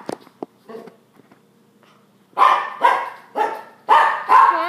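A pet dog barking: a couple of soft sounds, then a quick run of about five loud barks, a little over two a second, starting about halfway through.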